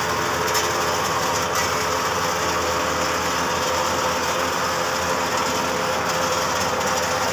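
Swaraj 963 4×4 tractor working under load, its PTO driving an 8-foot Landforce super seeder whose rotor churns the soil: a steady, even engine and machinery noise.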